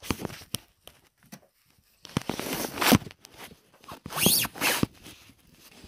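Handling noise: a few sharp clicks, then two rustling scrapes, the second with a sliding pitch.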